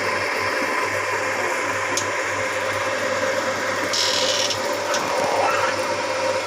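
A machine runs steadily with a rattling, whirring hum. About four seconds in there is a brief high-pitched squeak.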